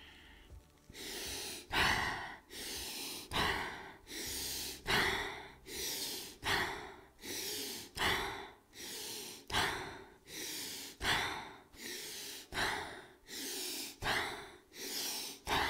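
A woman breathing forcefully, sucking air in and forcing it out in a steady rhythm of about one full in-and-out every second and a half. This is a pranayama exercise of ten rapid, forceful breaths.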